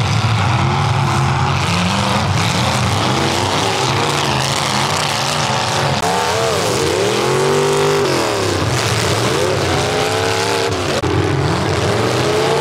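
Demolition derby cars' engines running and revving in the arena, rising and falling in pitch as drivers accelerate and back off. One engine revs up hard and drops back about six to eight seconds in.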